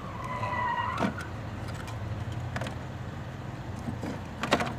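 Steady low mechanical hum, like a vehicle engine running nearby, with a few sharp clicks: one at about a second, another later, and a quick cluster near the end. A brief whistling tone sounds in the first second.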